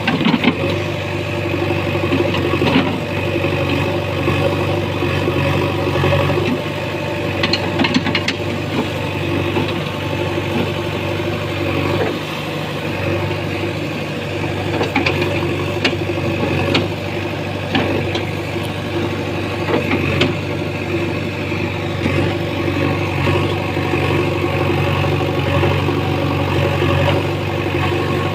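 JCB 3DX backhoe loader's diesel engine running steadily, with a few sharp knocks here and there.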